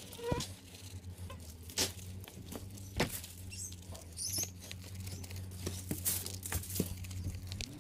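Dry spice rub pattering onto a raw chicken and the plastic under it as it is shaken from a packet, with scattered ticks and the packet rustling, over a low steady hum.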